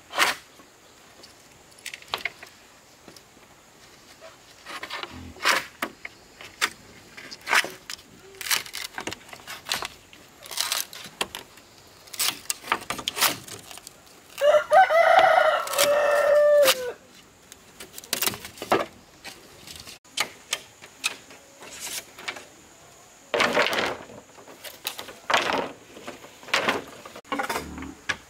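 A rooster crowing once, a single call of about two seconds roughly halfway through. Irregular sharp knocks and clicks come before and after it.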